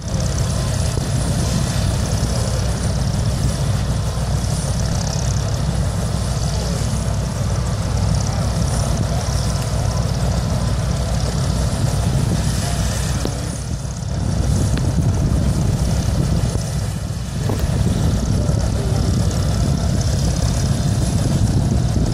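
Vietnam-era Bell UH-1 "Huey" helicopter running on the ground ahead of takeoff, its engine and main rotor making a loud, steady din. The din dips briefly twice around the middle.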